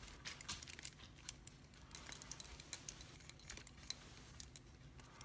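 A bunch of metal keys on a ring with plastic tags jangling and clicking in the hand as they are sorted through to try one in a padlock. Scattered light clicks, most of them in a cluster about two seconds in.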